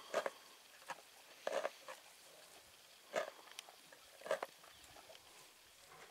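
Male lion feeding on a buffalo carcass: short, irregular wet tearing and chewing sounds, a few each second.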